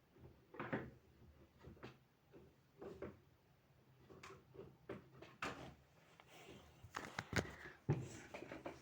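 Light handling noise: a scattered series of small knocks and clatters, like drawers or cupboard doors and small objects being moved and set down, busiest near the end.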